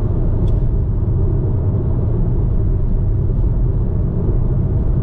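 Steady low rumble of a car's tyres and engine heard from inside the cabin while driving along a highway.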